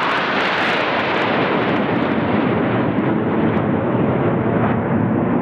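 A formation of jet aircraft flying overhead: a loud, steady rushing jet noise, brightest in the first second or so.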